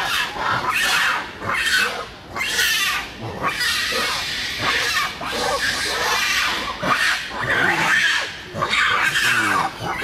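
Macaques screaming in shrill calls, one after another, as monkeys in the troop chase and scuffle.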